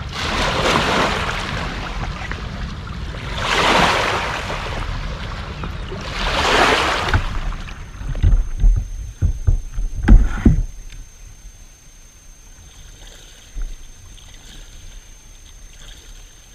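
A plastic fishing kayak being launched off a stone slipway into the water: three swelling rushes of water and hull noise a few seconds apart, then a run of knocks and thumps on the kayak as the paddler boards and settles in.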